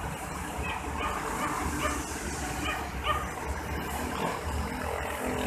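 A dog barking repeatedly, short barks about once a second, over a low steady rumble.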